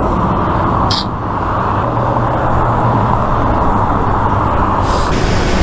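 Freeway traffic passing close by: a steady rush of tyre and engine noise, with a brief sharper hiss about a second in and again near the end.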